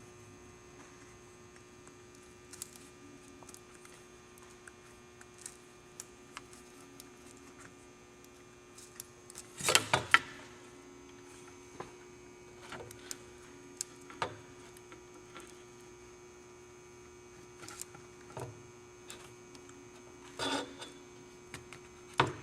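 Steady electrical hum with scattered soft clicks and rubs as rubber weatherstrip is worked into the channel of a Ford truck vent window frame, with a louder burst of handling noise about ten seconds in and two more near the end.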